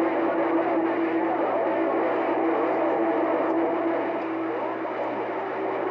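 CB radio receiver on channel 28 putting out loud, steady static with a low, steady whistle of a heterodyne, and faint warbling signals buried in the noise.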